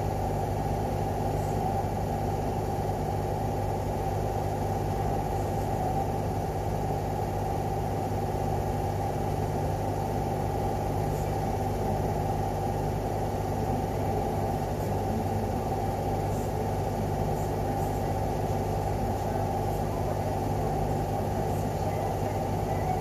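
A steady low mechanical hum and rumble that does not change throughout.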